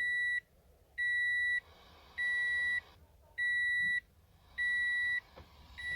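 A car's electronic warning beeper sounding a steady single high tone, each beep about half a second long, repeating evenly a little more than a second apart.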